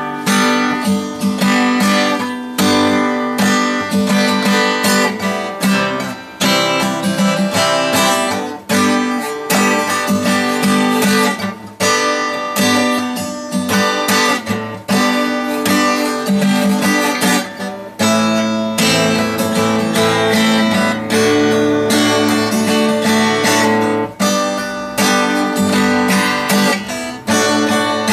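Cutaway acoustic guitar strummed in a steady rhythm, played solo without singing, with brief breaks about every six seconds.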